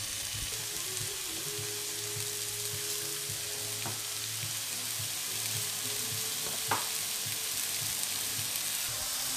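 Flattened chicken-breast patties sizzling in a little oil in a nonstick frying pan with onion and rosemary, a steady hiss, with one brief click about six and a half seconds in.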